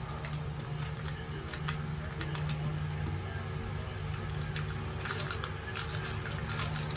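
The clear plastic top film of a tire repair patch being peeled and picked off, a light irregular crackle of small clicks, over a steady low hum of running machinery.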